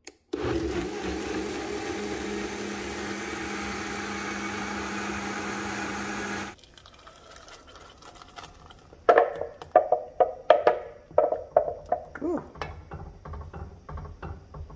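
Vitamix blender motor running steadily as it purees roasted tomatoes, shallot and garlic into soup, then stopping suddenly about six seconds in. After a pause, a run of short knocks and scrapes as the plastic blender jar and a spatula strike and scrape against the rim of the pot while the soup is emptied out.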